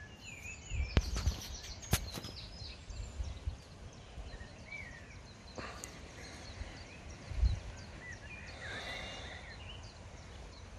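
Small birds chirping with short, quick calls, along with a couple of sharp clicks about one and two seconds in and a few low thumps, the loudest about seven and a half seconds in.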